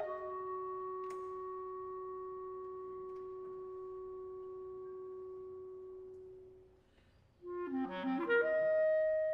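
Solo clarinet holding one long low note that slowly fades away, then, after a brief pause, a quick flurry of notes that settles on a higher held note.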